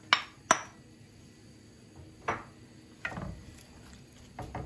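A wooden spoon knocking against a bowl and a pot while chopped onions are scraped into a pot of cubed meat and stirred: a few sharp scattered knocks, two close together at the start and a few more spread through the rest.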